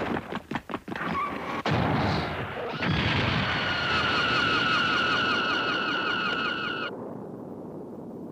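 Animated sci-fi explosion sound effect: rapid pulsing, then a sudden loud blast about two seconds in, followed by a sustained noise with a fast-repeating falling electronic tone that cuts off sharply near the end, leaving a fading rumble.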